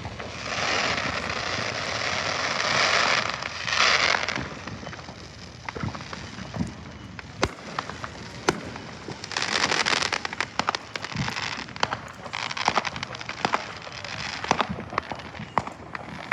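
Consumer fireworks going off: three spells of hissing spray a few seconds long, with many sharp crackling pops throughout.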